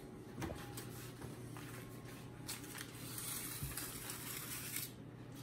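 Disposable aluminium foil pan loaded with chicken crinkling and scraping as it is handled and lifted off a stone counter, with a few light knocks about half a second in and the loudest crinkling from about three seconds in. A low steady hum runs underneath.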